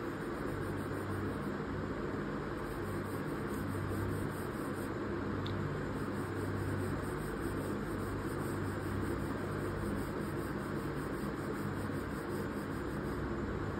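Steady background hiss with a low hum, like a fan or air conditioner running, with no distinct strokes or clicks standing out.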